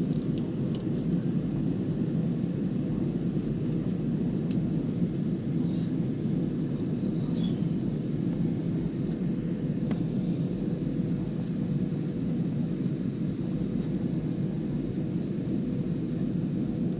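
Steady low rumble of a moving vehicle, heard from inside, with a faint steady hum and a few light clicks and a brief rattle midway.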